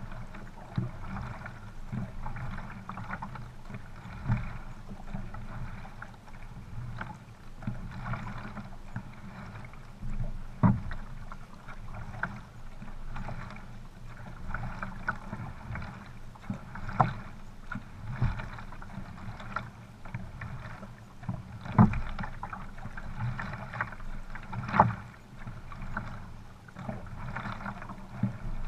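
Water washing and lapping against the hull of a paddled canoe under way, with irregular sharp slaps of water and paddle strokes.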